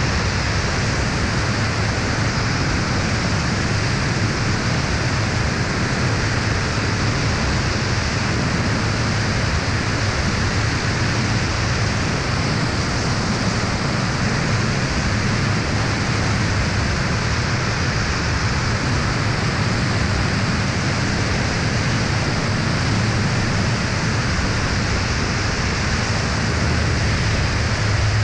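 Steady rush of wind over a camera mounted outside on the wing of an Aeroprakt A22 ultralight in cruise, with the aircraft's engine and propeller droning low and even underneath.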